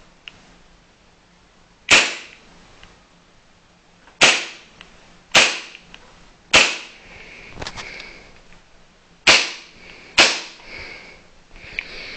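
KJW KP-06 gas blowback airsoft pistol firing six single shots at uneven intervals, each a sharp crack of gas and slide cycling.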